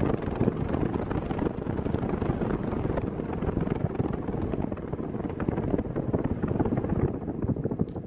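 Arno Silence Force VF6M table fan running after being switched on, its blades pushing a steady rush of air against the microphone.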